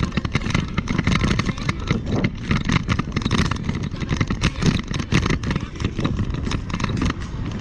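Continuous noisy rumble of movement over an asphalt path, with irregular knocks and wind buffeting the microphone.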